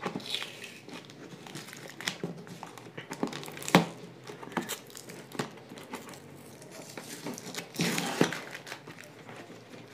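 Black plastic packing tape being picked at and peeled off a cardboard shipping box: crinkling and tearing with scattered sharp crackles. There is a louder stretch of ripping about eight seconds in.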